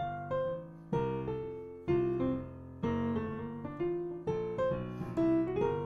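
Piano playing a whole-tone scale line in the right hand over left-hand jazz chords of a ii–V–I in F, struck about once a second, giving the whole-tone sound over the C7 dominant chord.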